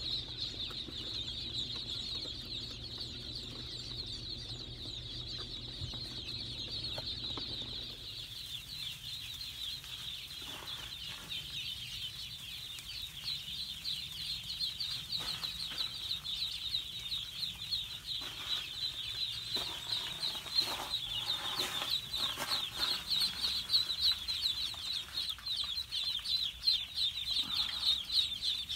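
A crowd of day-old ducklings peeping: a dense, continuous chorus of high, rapid peeps that grows louder and busier later on. For the first several seconds a low steady hum of the car runs under it, the ducklings boxed inside the car.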